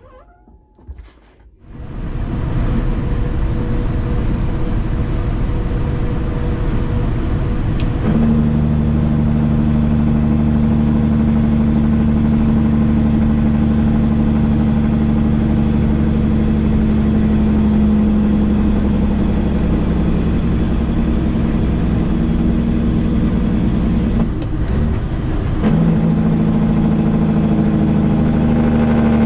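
Semi-truck's CAT C15 diesel engine pulling, heard from inside the cab. About 8 s in the engine note strengthens and a high whine rises. Near the end it briefly drops away and picks up again, as during a double-clutched gear change.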